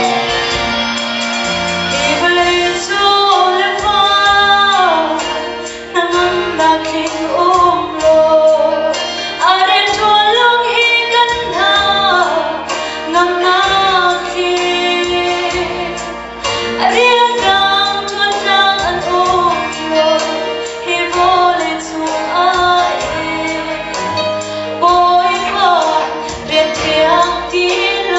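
A woman sings solo into a handheld microphone over instrumental accompaniment. Her voice comes in about two seconds in, after a short instrumental passage, and carries a slow melody with held notes.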